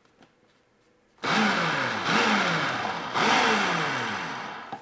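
Small food processor motor mixing flour and salt, starting about a second in and running in three surges, each whirring down in pitch before the next.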